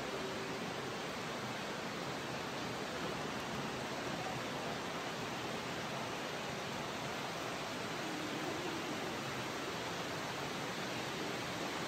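Steady rushing of flowing water, the stream that runs through the cave, with no let-up.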